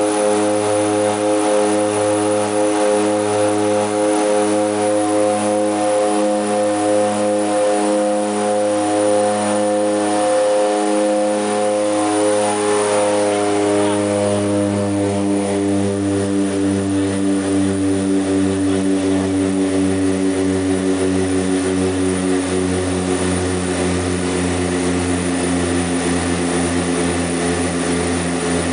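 Seaplane's propeller engines droning steadily in flight, heard from inside the cabin. The drone's pitch drops a little about halfway through and then holds steady.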